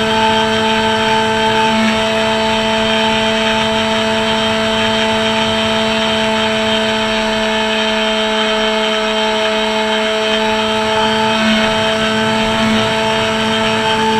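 RC flying wing's motor and propeller running at a steady throttle, a loud even-pitched hum, heard from a camera mounted on the plane.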